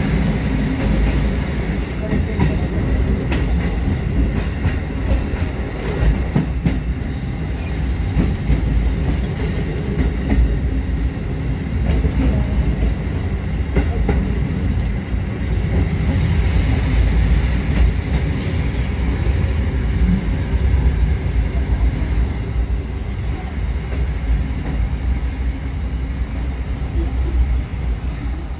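Kotoden 1200-series electric train running along the track, heard from inside the cab: a steady low rumble of wheels on rail with occasional light clacks.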